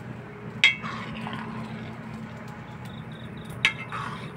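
A utensil knocking twice against a metal wok of milk boiling on a stove, about three seconds apart, each knock ringing briefly, over a steady low hum.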